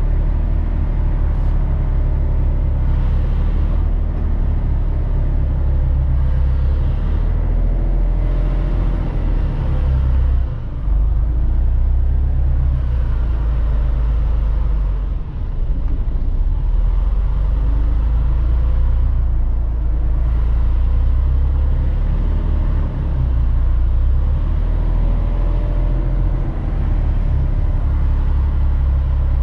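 Semi-truck's diesel engine running with a steady low rumble, its pitch wavering slightly, with two brief dips partway through.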